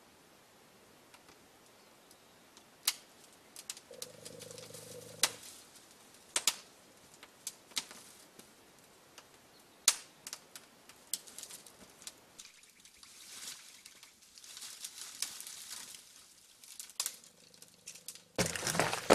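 Dry brushwood being handled and set alight: twigs snap and crackle in scattered sharp cracks, then the pile catches with a sudden loud, rushing crackle near the end. A short pitched call sounds about four seconds in.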